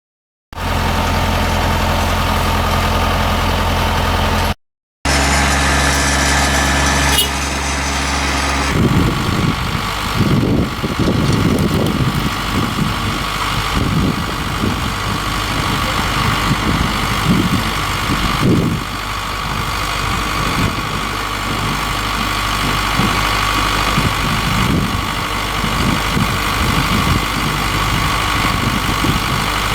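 Engine of a large potato-harvesting machine running steadily, across separate cut-together shots with a brief drop-out just before five seconds in. From about nine seconds in, an uneven low rumble rides over the engine.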